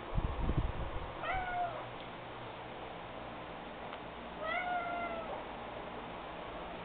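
Calico cat meowing twice, about three seconds apart; the second meow is longer. A brief low rumble in the first second, louder than the meows.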